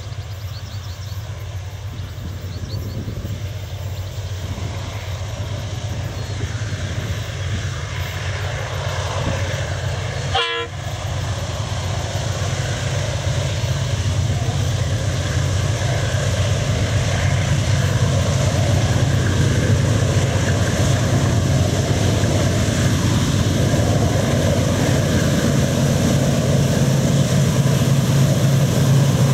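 KiwiRail DX-class diesel-electric locomotives hauling a milk tanker train, engines running with a steady low drone that grows louder as the train approaches, broken once about ten seconds in.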